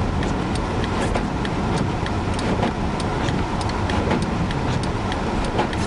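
Steady rush of wind and road noise inside a car driving slowly through a blizzard, with scattered sharp ticks throughout.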